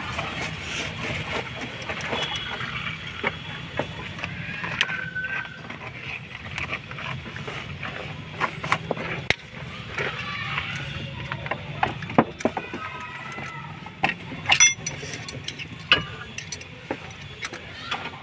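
Irregular metallic clicks and clinks of a ring spanner working the mounting bolts of a Mahindra XUV500's AC compressor, with a few sharper clanks in the second half.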